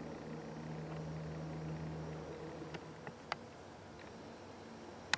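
A flying insect buzzing close by with a steady low hum that stops about two seconds in, over a constant thin high-pitched tone. A few faint clicks follow, then one sharp click just before the end.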